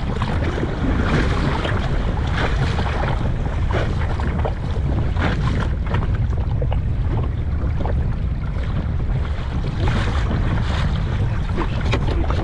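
Wind buffeting the microphone in a steady heavy rumble, with choppy water splashing and slapping against the kayak's hull.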